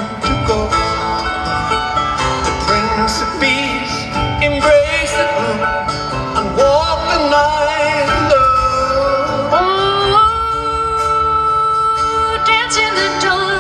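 A live band plays amplified through the PA, with long, wavering sung notes over strummed string accompaniment. Near the end a voice holds one long steady note. It is heard from far back in the crowd.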